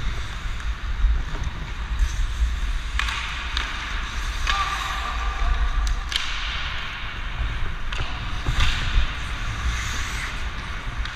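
Hockey skate blades carving and scraping on rink ice, with several hard swishing scrapes from stops and turns and a few sharp clacks of sticks, over a steady wind rumble on a helmet-mounted camera's microphone.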